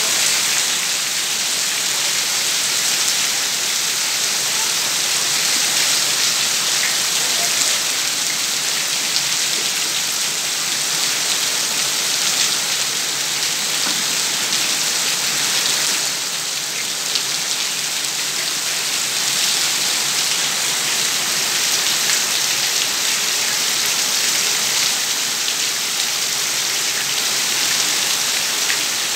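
Heavy rain falling steadily, a dense unbroken hiss of drops on tree leaves and on flooded paved ground.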